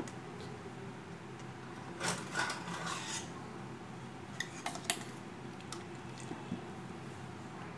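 A metal spoon scraping and clinking against the inside of a stainless-steel mixer-grinder jar of milkshake. There are a few scrapes about two seconds in and a couple of sharp clinks near the five-second mark.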